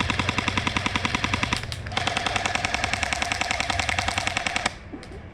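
Airsoft guns firing long full-auto bursts of rapid, evenly spaced shots: one burst stops about a second and a half in, another starts about two seconds in and cuts off near the end, with a steady whine under its shots.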